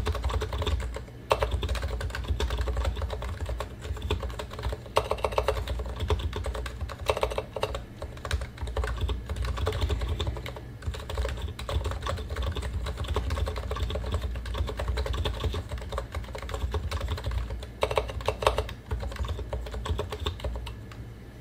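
Continuous typing on a Realforce R2 PFU Limited keyboard: Topre electro-capacitive switches with uniform 45 g rubber domes, silent sliders and stock PBT keycaps, giving a steady stream of quick key strokes with a few faster flurries.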